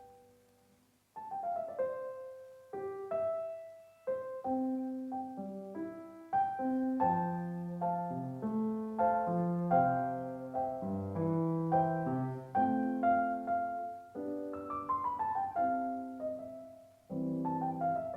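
Solo piano background music: gentle melodic phrases of struck notes and chords, after a brief pause about a second in.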